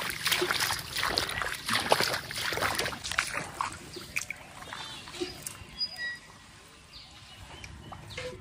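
Water splashing and sloshing for about the first three seconds, then quieter, with a few faint bird chirps.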